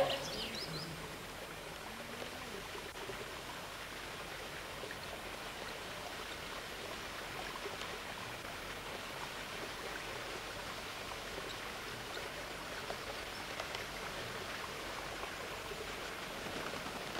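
Steady, even outdoor background noise, a rushing hiss with no distinct events, after a brief loud sound at the very start.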